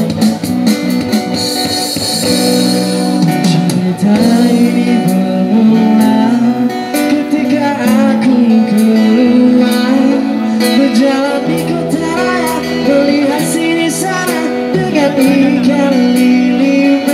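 Live street band playing through small amplifier speakers: acoustic guitar with singing into a microphone.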